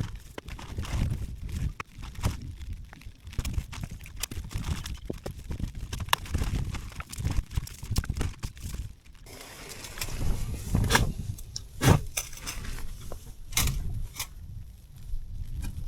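Gusty wind rumbling on the microphone, with rustling and a few sharp knocks in the second half.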